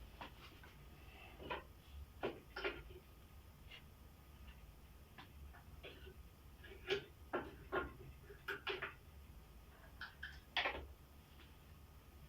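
Metal padlocks being handled and rehung on a tree, giving scattered light clicks and knocks, a dozen or so at irregular intervals with small clusters about seven and eight seconds in and a sharper knock near the end.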